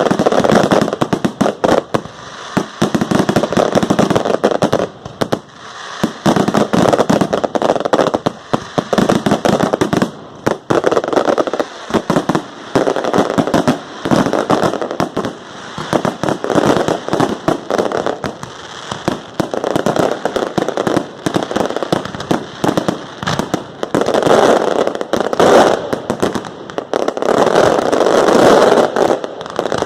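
Fireworks display going off: a dense, continuous string of bangs and crackles with hardly a pause.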